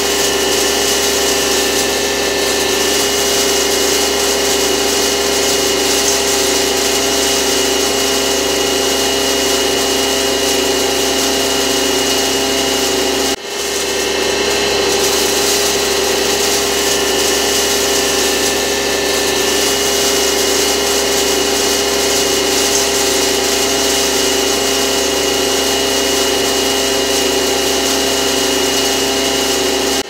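Maize grinding mill running steadily: a dense, even machine noise with several steady humming tones over it. It dips out briefly about a third of the way through, then carries on unchanged.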